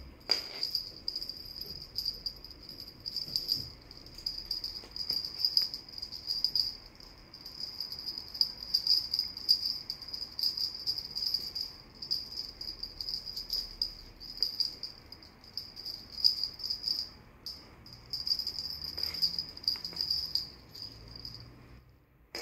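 Two small jingle bells on a rope cat toy jingling almost continuously as the toy is jiggled and dragged, with a brief break about seventeen seconds in and a few soft knocks.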